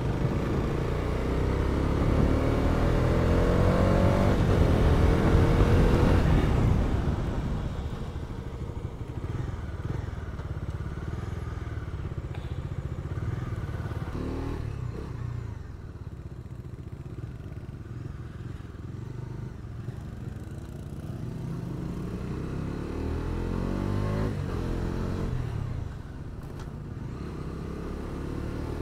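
Bajaj Dominar 250's single-cylinder engine under way, heard from the rider's seat, rising in pitch as it accelerates over the first six seconds, then running more quietly at low cruising speed. It revs up again a few seconds before the end and drops off suddenly just after that.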